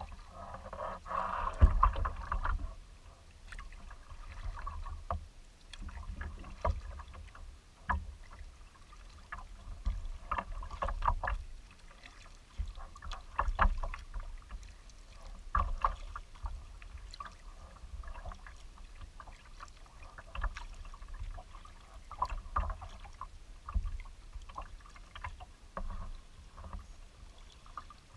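Kayak paddle strokes splashing and dripping, with water lapping at the hull, about one stroke every one to two seconds over a low rumble.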